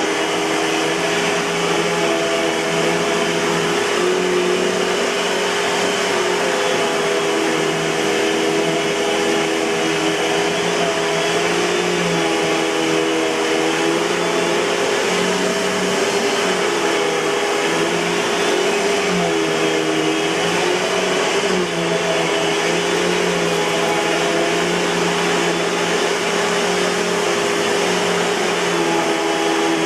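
Eureka Boss 6833B canister vacuum cleaner running steadily, a continuous motor whine whose pitch wavers slightly now and then.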